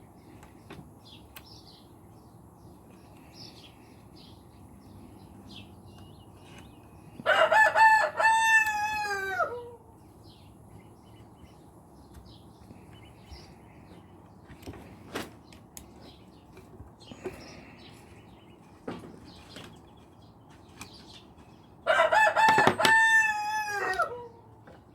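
Rooster crowing twice, each long cock-a-doodle-doo lasting about two and a half seconds and ending in a falling tail, the two crows about fifteen seconds apart. Faint scattered clicks in between.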